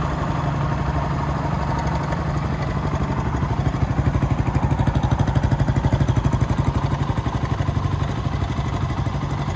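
Kawasaki KLX125's single-cylinder four-stroke engine idling with an even throb, a little louder for a few seconds in the middle.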